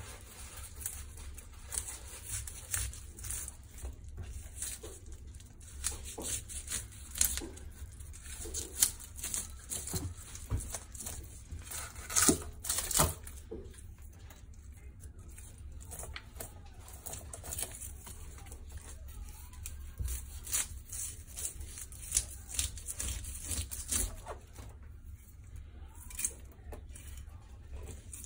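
Kitchen knife scraping the scales off a sea mullet in a rapid, irregular run of short rasping strokes against the skin, with a few louder strokes about halfway through.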